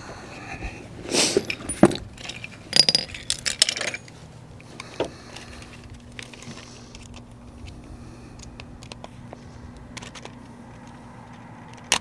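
Metal hardware of a car seatbelt retractor assembly clinking and rattling as it is handled and worked into its mount behind the door pillar. The sharp metallic rattles cluster in the first few seconds, with one more click a little later.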